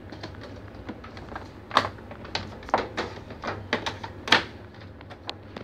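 Irregular clicks and knocks as a Panasonic bread maker is handled, the loudest about two seconds and about four seconds in, over a faint low hum.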